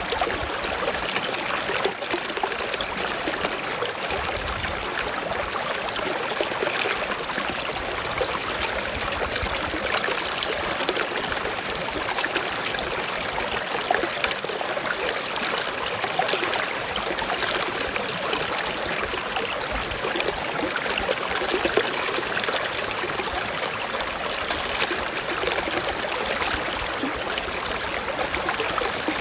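Shallow stream running over stones, a steady trickling and babbling of water.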